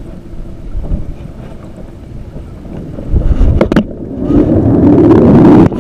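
Wind rumbling on the camera microphone while wading in shallow water, with water sloshing, growing louder about four seconds in. A couple of sharp clicks come about three and a half seconds in.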